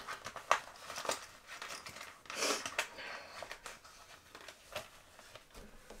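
Hands rummaging and handling small objects: scattered light clicks and rustling, with a louder rustle about two and a half seconds in.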